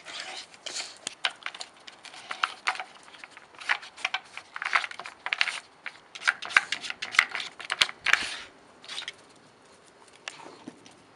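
Wooden discs of a Dog Turbo puzzle board sliding and clicking in their grooves as a Cairn terrier noses and paws at them: a run of short scrapes and sharp clicks that thins out near the end.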